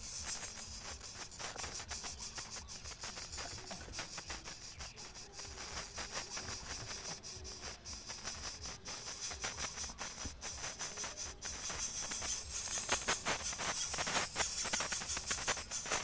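Greater coucal nestlings giving rapid, hissing, rattle-like begging calls, growing louder in the last few seconds.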